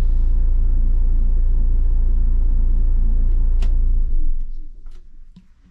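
Diesel engine idling with a steady low rumble, then shut off about four seconds in, running down quickly to a few faint clicks.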